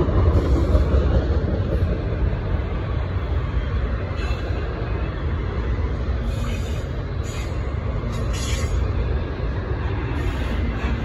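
Autorack cars of a freight train rolling past close by: a steady low rumble of steel wheels on the rails.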